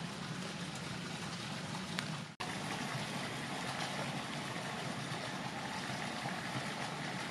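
Steady rushing background noise, with a momentary dropout about two and a half seconds in.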